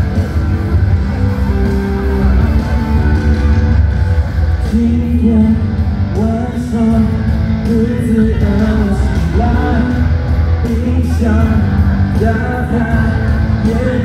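Live pop-rock band playing loudly, with drums and a steady bass line; a man's singing voice comes in over the band about four seconds in.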